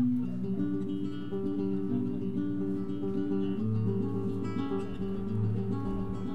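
Acoustic guitar playing a flamenco-style passage of strummed chords and picked notes, starting suddenly.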